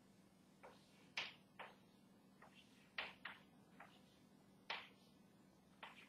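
Chalk tapping and scratching on a blackboard as arrows and letters are drawn: about nine short, sharp strokes at an uneven pace. A faint steady hum sits underneath.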